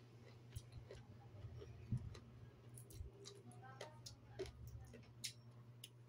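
Faint scattered clicks and small pops of sea grapes (lato) being bitten and chewed, the little seaweed beads bursting in the mouth, over a steady low hum.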